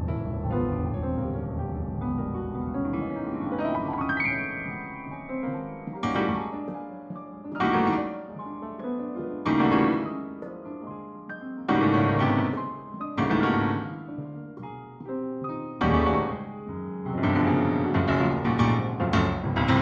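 Piano music: held notes at first, then from about six seconds in, loud chords struck every two seconds or so, each ringing and fading away. The notes grow denser near the end.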